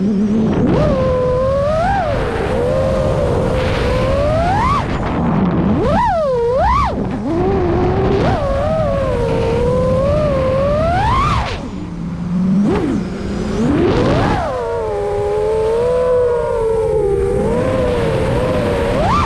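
FPV quadcopter's motors and propellers whining over the rush of wind, the pitch swooping up and down as the throttle is punched and eased, with a brief drop near the middle.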